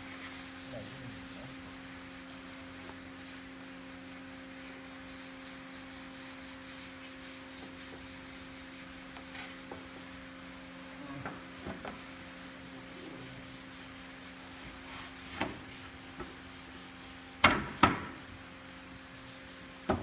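Wooden frame parts knocking as they are fitted together by hand, a few scattered knocks with a loud pair near the end, over a steady low hum of workshop machinery.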